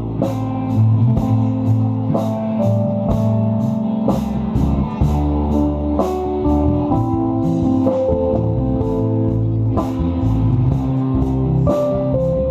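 Live rock band playing an instrumental passage: electric guitar, bass guitar and drum kit, with a steady beat on the cymbals.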